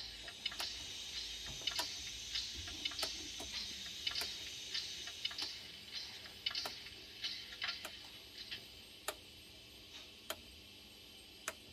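Model railway turntable turning, its drive mechanism giving a faint high whirr with irregular sharp clicks that thin out and quieten towards the end.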